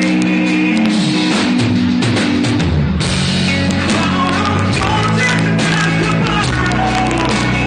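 Live rock band playing loud: electric guitar, drum kit and a male singer at the microphone, heard from within the audience.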